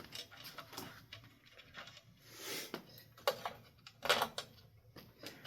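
Hands working on a ceiling fan's hardware: a run of small clicks and knocks of metal parts and screws being handled, with a brief rustle in the middle and two louder knocks past the halfway point.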